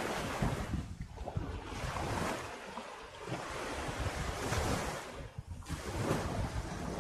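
Small waves washing up on a sandy beach, surging in several times, with wind gusting on the microphone.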